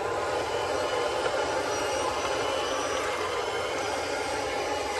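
A 1/10 scale RC crawler's electric motor and geared drivetrain whirring steadily as the truck pushes through muddy water.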